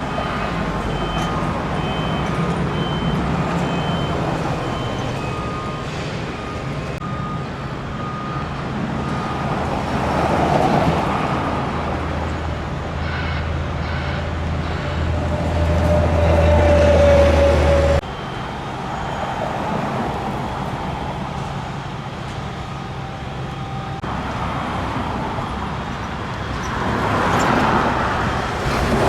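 Road traffic with heavy vehicles, cars, trucks and buses, running past in a steady low rumble, with one vehicle's whine rising about halfway through. A short electronic beep repeats at an even pace for the first several seconds.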